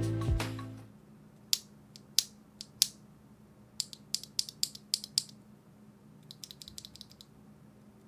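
Background music fading out, then scattered sharp clicks and taps of hard plastic being handled, first one at a time, then a cluster, then a quick run of lighter clicks near the end.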